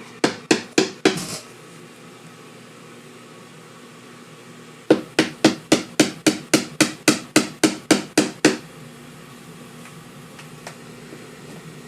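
Rapid hammer blows, about four a second, knocking a speaker driver loose from a particle-board speaker cabinet. There are four strikes in the first second, then a longer run of about fifteen from about five seconds in until past eight seconds.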